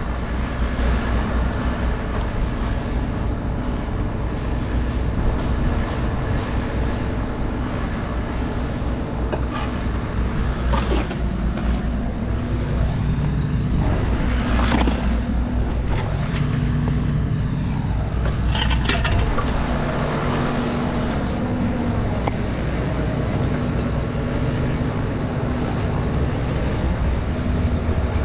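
A motor running steadily with a low hum whose pitch shifts a little, with a few sharp knocks and clatters partway through.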